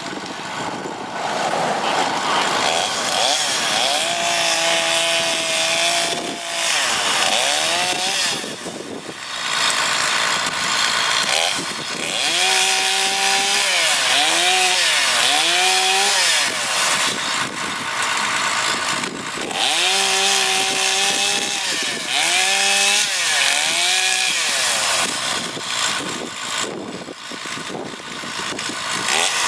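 Komatsu excavator's engine and hydraulics working hard while it pushes into and breaks trees, the pitch rising, holding and dropping again and again under load, with branches and wood cracking and scraping.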